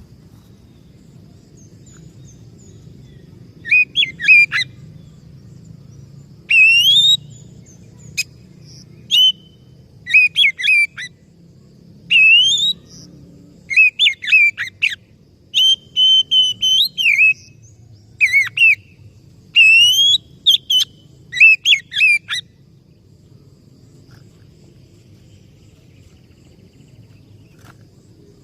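Oriental magpie-robin singing a run of short, loud, clear whistled phrases, each under a second, with quick rising and falling glides. The song stops about two-thirds of the way in, leaving a faint low hum.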